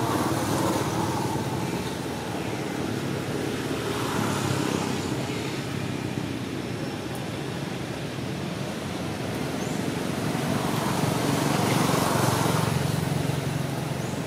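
Steady outdoor background rumble and hiss, with no clear animal calls, swelling louder about four seconds in and again near the end, like distant road traffic passing.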